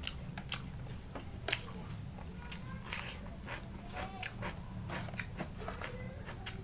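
A person chewing food close to the microphone: wet mouth clicks and lip smacks at irregular intervals, a dozen or so sharp ones standing out.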